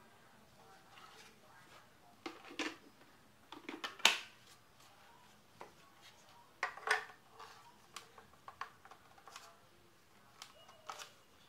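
Plastic clicks, knocks and rattles as the green dust cup and nozzle of a Hitachi R18DL cordless handheld vacuum are taken apart and handled, with the sharpest snap about four seconds in; the vacuum's motor is not running.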